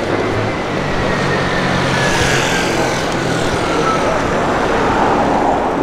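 A motor vehicle passing close by in street traffic: a steady engine hum, with a whine that slowly falls in pitch and a rush of noise that swells about two seconds in and then eases.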